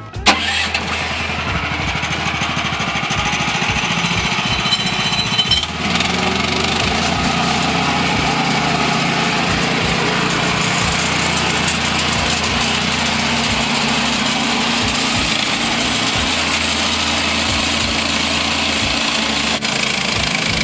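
Portable band sawmill running: its gas engine driving the band blade through a log. The loud, steady noise comes in suddenly just after the start and grows louder and steadier about six seconds in.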